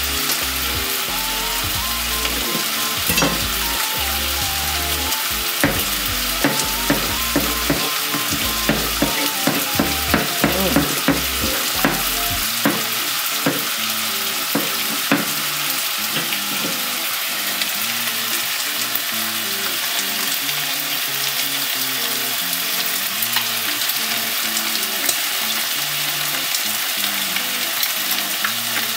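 A steady crackling hiss with soft background music notes beneath it. Through the first twelve seconds or so, sharp clicks and taps of a knife on a plastic cutting board as it cuts open a plastic pouch of green curry paste.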